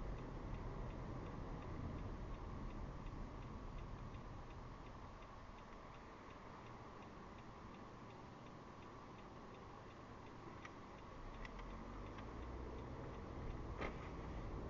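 Car turn-signal indicator ticking steadily inside the cabin over a low engine and road rumble. The rumble drops in the middle and builds again near the end.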